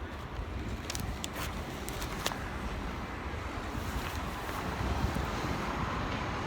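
Edinburgh tram approaching the platform, a low steady rumble under wind buffeting the microphone, with a few sharp clicks in the first two seconds or so.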